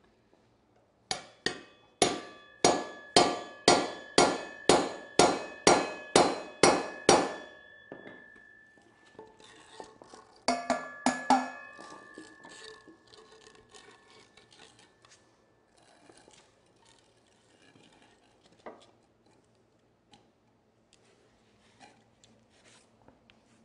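Hammer blows on a bearing driver tool, knocking a sealed wheel bearing that is frozen into an aluminum motorcycle wheel hub: about a dozen sharp metallic strikes, roughly two a second, each leaving a ringing tone. After a pause come three more strikes, then light metal clatter.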